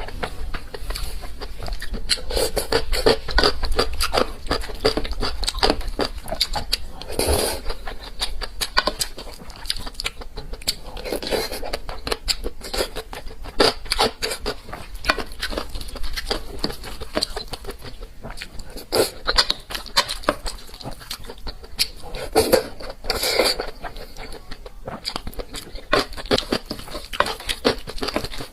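Close-miked chewing and lip-smacking of someone eating tomato-and-egg rice with pickled radish: a dense, irregular run of wet mouth clicks, with a few louder bites.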